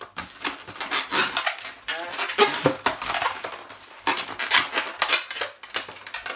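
Latex modelling balloons squeaking and rubbing as they are twisted and folded into loops by hand, a busy run of short squeaks and creaks.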